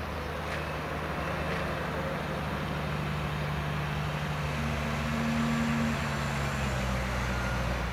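Bombardier Dash 8-402 (Q400) turboprop airliner climbing away just after takeoff. Its two Pratt & Whitney PW150A engines and six-bladed propellers give a steady low propeller drone with several low hum tones over a rushing noise.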